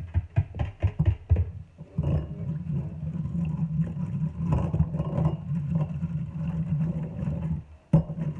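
Electric hand mixer beating pancake batter in a bowl. A few clattering knocks come first, then about two seconds in the motor starts with a steady hum. It cuts off shortly before the end, gives one sharp knock against the bowl and starts again.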